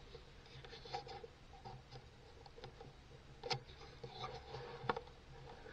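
Faint handling noise from a gun with a camera mounted on it, moved slowly while aiming: light rustling and scattered small clicks, the sharpest about a second in, midway and shortly before the end.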